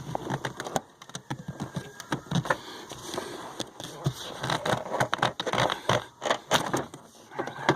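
Stiff plastic parts of the stock air intake scraping, creaking and clicking irregularly as they are pulled and twisted loose by hand.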